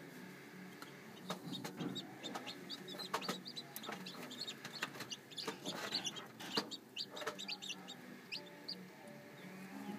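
Chicks peeping in an incubator: many short, high peeps mixed with sharp clicks and taps, thinning out after about seven seconds, over a steady low hum.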